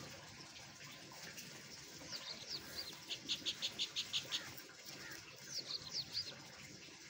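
Small birds chirping: a few quick downward-swept chirps, then a fast run of about eight chirps in the middle, then a few more near the end, over a faint steady rustle.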